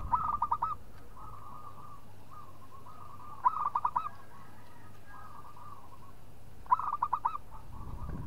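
Zebra dove (perkutut) singing its cooing song: three phrases about three seconds apart, each a quick run of about five rapid coos, with softer coos in between.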